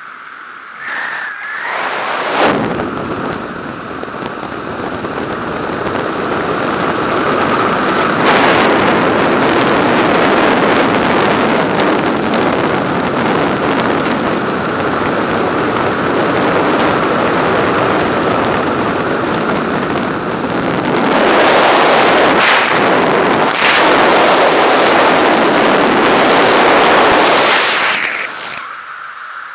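Loud wind rushing and buffeting over a skydiver's helmet-camera microphone during a fast descent. It builds up about two seconds in, grows louder again in the last third, and then falls away sharply near the end.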